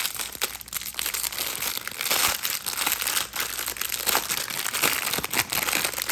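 Plastic packaging crinkling and crackling as it is handled and opened to get a fidget toy out, with many short crackles throughout.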